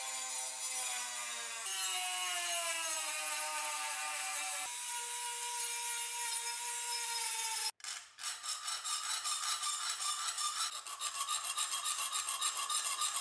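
Hand-held rotary tool with a small grinding bit running against the steel edge of a rusty skinning knife, a whine that sinks slowly in pitch as it bears on the metal. After a sudden cut about eight seconds in, a round file scrapes back and forth over the blade in quick, even strokes.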